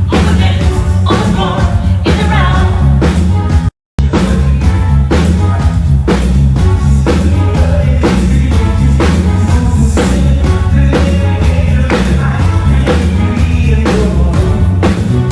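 Loud music with a steady beat, heavy bass and singing, played through a venue PA system. It cuts out completely for a split second about four seconds in.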